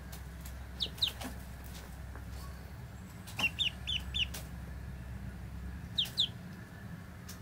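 Ducklings peeping in short, high, falling chirps: two about a second in, a quick run of four a little past the middle, and two more near the end, over a low steady hum.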